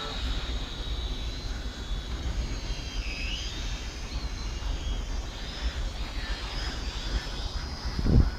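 Toy quadcopter's small electric motors and propellers whining steadily, the pitch dipping and rising again about three seconds in, over a low rumble. A loud thump near the end.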